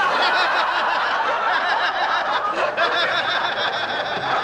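Laughter from many people at once, a steady wash of chuckling voices right after a punchline.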